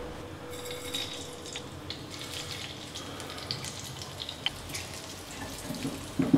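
Hot ghee and oil sizzling and crackling in a small steel tadka pan as cumin seeds and asafoetida fry on high heat, with a few louder knocks near the end as a spatula stirs against the pan.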